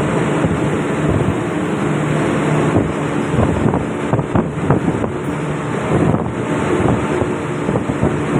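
Steady drone of a ship's engine-room machinery running, a constant hum with a noisy rush, with a few light metallic clicks and knocks from handling a fuel injection pump in a vise.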